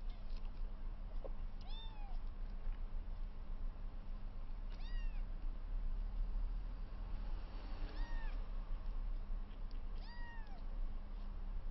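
A 22-day-old kitten mewing four times, a few seconds apart: short, high-pitched cries that rise and then fall in pitch.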